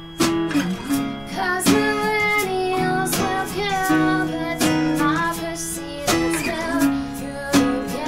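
A small acoustic band playing a song: acoustic guitars strummed in a steady rhythm, with a woman singing the lead vocal over them.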